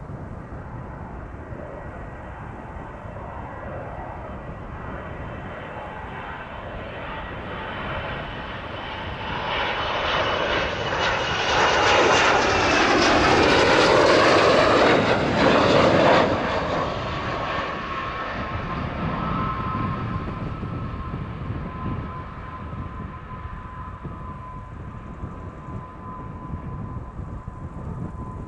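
Panavia Tornado's twin RB199 turbofans on final approach. The jet noise swells to its loudest about halfway through as the jet passes close by, with a whine that falls in pitch as it goes past. It then fades to a steady whine as the jet flies on toward the runway to touch down.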